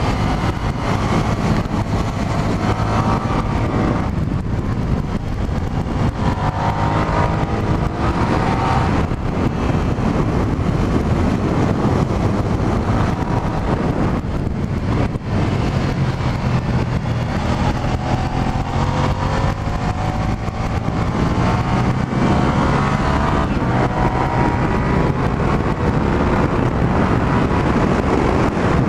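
2003 Suzuki SV650S's 90-degree V-twin engine under hard riding, heard muffled from inside the rider's helmet. Its revs rise and fall over and over, with a few brief dips.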